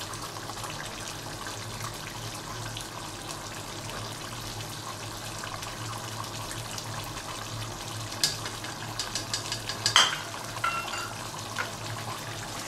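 Chicken curry simmering in a pot with a steady hiss, joined from about eight seconds in by a spatula scraping and knocking against the pot as the ground spice mix is stirred in. There is one sharper knock about ten seconds in.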